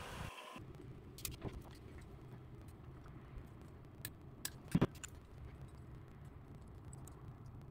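Faint metallic clicks and ticks of a Lishi AM5 2-in-1 pick working inside a padlock, over a low steady hum. The loudest clicks come about four to five seconds in.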